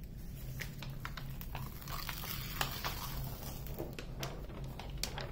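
Release paper on a diamond painting canvas rustling and crinkling as it is lifted and handled, a string of small irregular crackles over a faint low hum.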